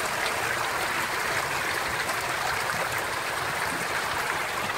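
Steady splashing and churning of water as a dense crowd of young common carp feeds at the pond surface.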